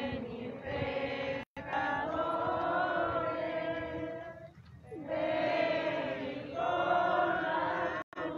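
Procession crowd singing a religious hymn together, long held phrases in unison, with two very short drops in the sound.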